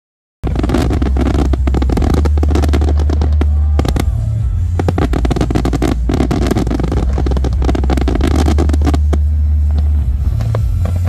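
Fireworks popping and crackling in quick succession over loud music with a heavy bass line, starting suddenly about half a second in.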